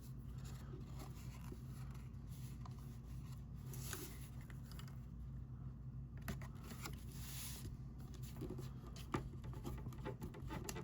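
Cardstock being handled and rubbed: soft paper rustling and scraping, with two longer swishes about four and seven seconds in and a few light taps, over a low steady hum.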